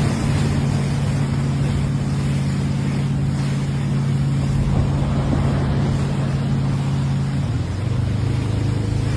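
An engine running steadily with a low hum, over rushing wind and water noise. Its pitch drops slightly about seven and a half seconds in.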